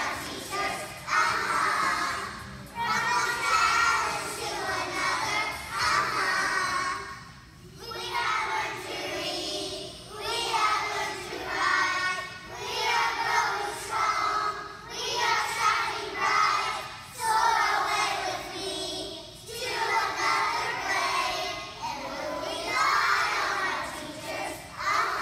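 A group of young children singing a song together to electronic keyboard accompaniment, in phrases that swell about every two seconds.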